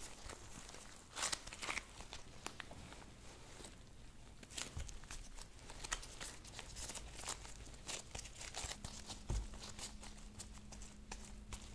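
Soft lightweight modelling clay squeezed, kneaded and pulled apart by gloved hands: scattered small crackles and soft tearing sounds.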